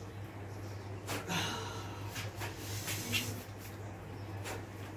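A man's heavy breathing with short snorts and sniffs, the strongest about a second in, over a steady low hum.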